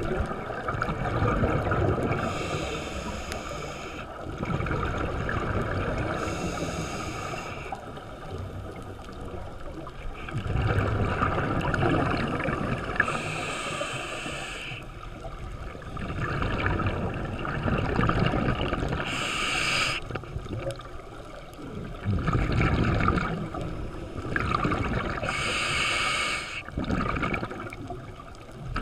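Scuba diver breathing underwater through a regulator: five hissing breaths about every five to six seconds, over a steady low rush of water noise.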